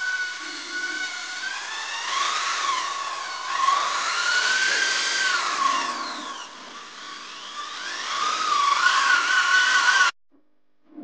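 Corded electric drill spinning a round scrub brush against wet, foamy sofa upholstery; its whine rises and falls in pitch as the brush is pressed and eased. The sound cuts off suddenly about ten seconds in.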